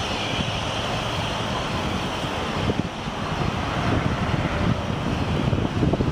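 Wind buffeting the microphone in irregular gusts of low rumble, over a steady rushing background noise.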